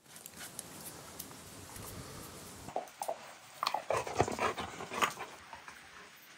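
A yellow Labrador making short whining sounds several times, beginning about halfway through; before that only faint background noise.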